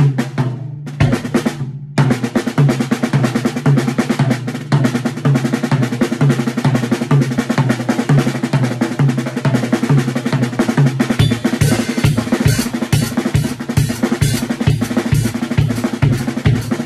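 Drum kit played with fast rolling strokes, the sticking run in groups of a single stroke and two doubles (R, LL, RR / L, RR, LL), over a steady low drum beat about twice a second. A brief break comes about a second in. From about eleven seconds in, the low drum hits grow heavier and a cymbal wash joins them.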